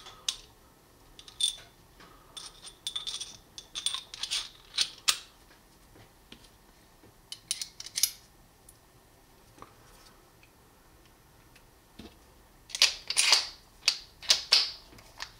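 Small metal clicks and clinks from the steel bits and extension shaft of a Lenox 8-in-1 ratcheting screwdriver being handled and fitted back together. The taps come in scattered clusters with a quiet stretch about two thirds of the way through, and a busier run near the end.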